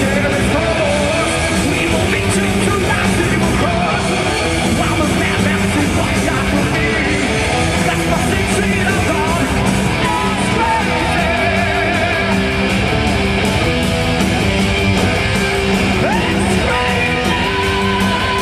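Heavy metal band playing live: distorted electric guitars, bass and drums, with sung and yelled vocals over them.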